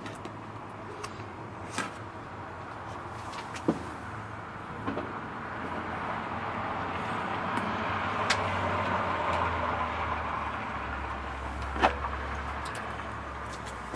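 A vehicle passing: a broad rush that swells over several seconds and then fades. A few sharp clicks and knocks sound over it, the loudest about twelve seconds in.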